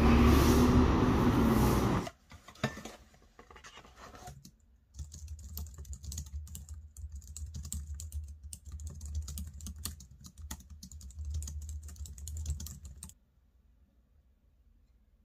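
Loud steady background noise for about the first two seconds, then cuts off. After that, fingers type on a low-profile computer keyboard, a quick run of key clicks that stops about two seconds before the end.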